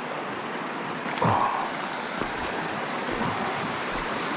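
Small shallow stream running and rippling steadily over a stony riffle. About a second in, a short louder sound cuts in briefly over the water.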